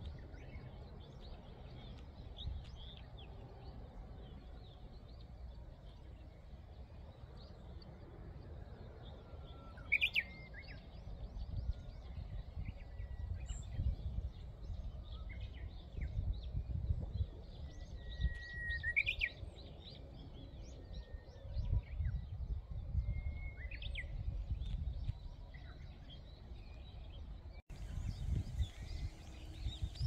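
Wind gusting over the microphone as a low, rising-and-falling rumble, with small birds giving scattered short chirps and whistled calls, a few of them louder and sharper.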